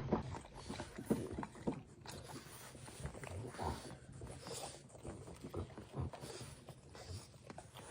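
Short, irregular animal noises, most likely from a pet.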